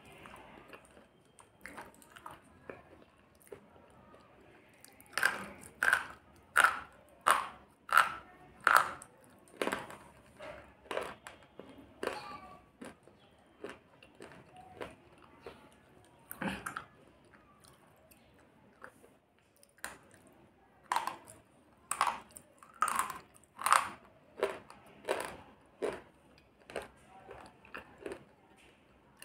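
Slate pencil being bitten and chewed: a series of sharp, dry crunches, with softer chewing between. There is a run of loud crunches at about one and a half a second starting about five seconds in, and another run a little past twenty seconds.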